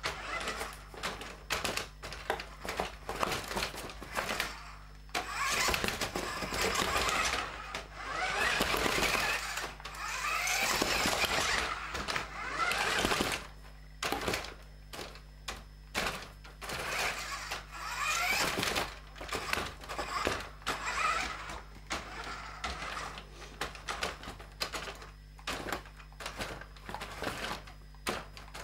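New Bright Ram RC monster truck's battery-powered electric drive motor and gears whining in repeated bursts, the pitch rising and falling with the throttle. Its rubber tyres knock and clatter over plastic bottle caps and plastic tubes.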